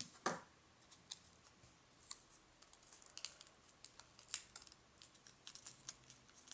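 Paper crinkling and crackling in the fingers as a folded paper origami frog is creased: a scatter of faint, crisp little clicks, with a louder rustle just after the start and another a little past the middle.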